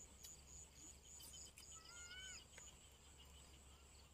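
Near silence outdoors with faint insects chirping in a steady, high-pitched rhythm, about three chirps a second. A single short bird whistle, rising at its end, comes about two seconds in.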